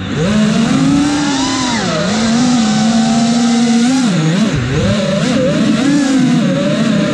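The brushless motors of an FPV freestyle quadcopter (T-Motor F40 Pro4 1950kv on 6S, spinning 5-inch props) whining, the pitch sliding up and down with the throttle and dipping sharply a couple of times as the throttle is cut and punched again.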